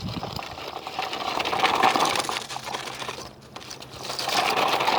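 Valmet 88 tractor's diesel engine running under load, pulling a duckfoot cultivator. Its sound dips briefly a little over three seconds in and then comes back up.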